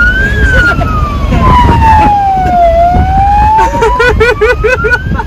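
Police car siren wailing, slowly rising for about two seconds, falling, then rising again. About four seconds in, a quick string of short chirping calls sounds over it.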